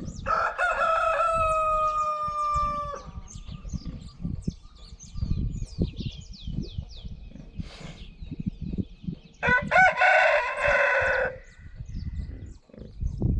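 A rooster crowing twice, one long crow at the start and a shorter one about nine seconds later, with small birds chirping throughout.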